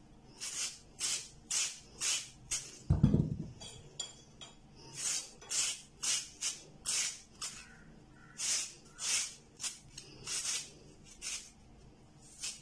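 Peeled raw potato being grated on a flat handheld grater: rhythmic rasping strokes, about two a second, in three runs with short pauses between them. A single low thump comes about three seconds in.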